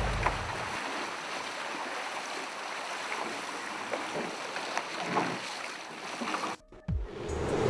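Steady rush of water and wind as the OceanOne trimaran's hulls slice through the sea at speed, throwing up spray and wake. It cuts out briefly near the end.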